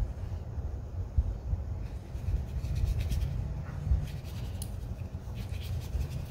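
Pentel Aquash water brush rubbing and scratching faintly across watercolor paper in short painting strokes, over a steady low rumble.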